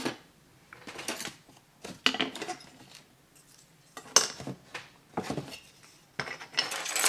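White plastic parts of a 1/25-scale model car kit clattering and rattling on their parts trees as they are handled and set down on a cutting mat, in about six short bursts with brief quiet between.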